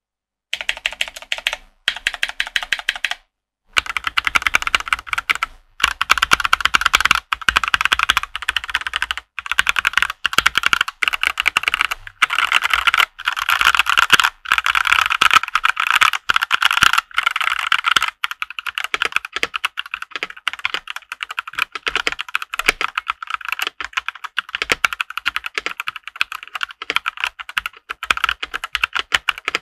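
Fast, continuous typing on a Rexus Daxa M64 Classic mechanical keyboard fitted with stock Gateron Yellow KS9 linear switches, with a couple of brief pauses near the start. Some spring ping is still audible from the stock switches.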